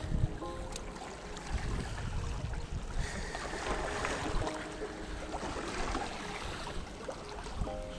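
Wind buffeting the microphone over the sea washing against the shore rocks, a gusty rumble under a steady hiss.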